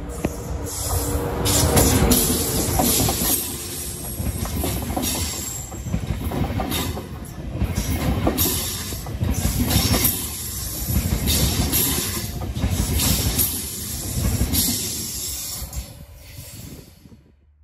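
A train passing close by at a railway junction, its wheels clattering over the track in a repeating rhythm as the cars go by, with some high-pitched wheel noise. The sound fades near the end.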